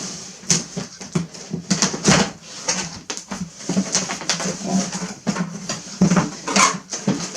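Cardboard box and packaging being opened and handled by hand: a run of irregular rustling and crackling sounds.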